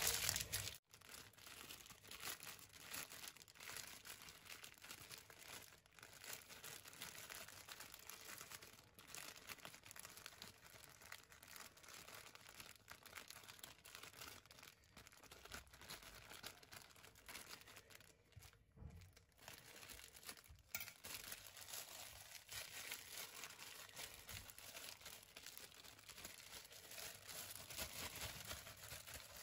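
Faint crinkling of thin plastic bags being folded and rolled tight around portions of pork mixture, with small crackles throughout; louder for the first second.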